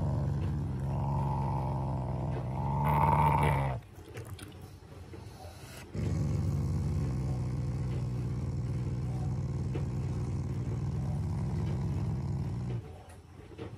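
Black Shiba Inu growling in play: a long low growl that swells louder just before it breaks off, then after a two-second pause a second steady growl lasting about seven seconds. It is a play growl at the owner's teasing hand, not an angry one.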